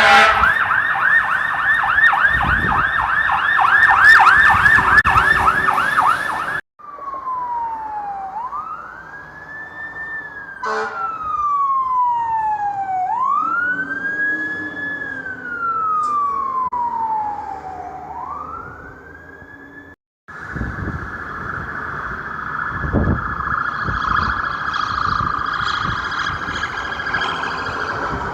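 Emergency vehicle sirens in three back-to-back recordings. First a fast yelp warbling many times a second, then a slow wail that rises quickly and falls over about four seconds, three times over. Last comes a rapid high warble over the low rumble of a vehicle engine.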